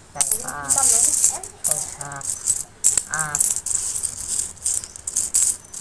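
Loose metal coins clinking and jangling as a hand rakes through and spreads a large heap of them. Short bits of voice break in about half a second, two seconds and three seconds in.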